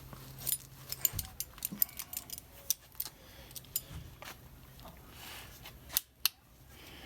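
Light, scattered metal clicks and clinks of small parts and hand tools being handled, with a couple of sharper clicks near the end and a low steady hum underneath.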